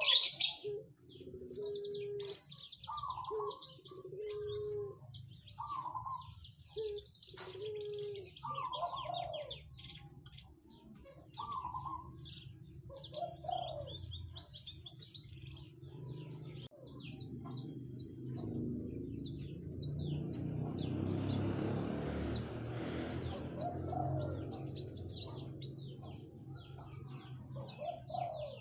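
Caged Horsfield's bush lark (branjangan) singing: fast, high twittering trills mixed with short, low cooing notes that recur every second or two. A little past halfway, a rushing noise swells and fades under the song.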